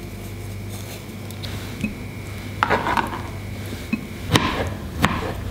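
Small kitchen knife peeling and chopping kiwi, then a few sharp clicks of the blade knocking on a plate and plastic cutting board as the chopped kiwi is scraped onto the plate. A steady low hum runs underneath.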